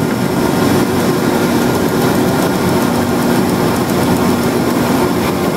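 Drill press spinning a hole saw as it cuts down into veneer core plywood, with a dust-collection hose drawing air beside the cut: a steady machine hum and cutting noise.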